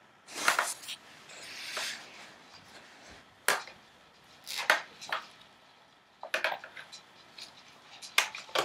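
Several sharp plastic clacks and knocks, spaced irregularly, from a baby's Fisher-Price Rainforest Jumperoo as the baby bounces in it and handles the toys on its tray.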